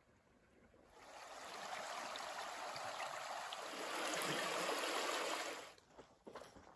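Shallow creek water running over a rocky bed, a steady rushing that starts about a second in, is loudest past the middle and stops shortly before the end.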